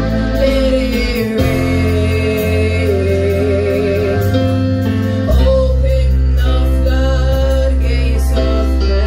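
Live worship music: women singing into microphones over a band of keyboard and electric guitar, with held bass notes changing every second or so.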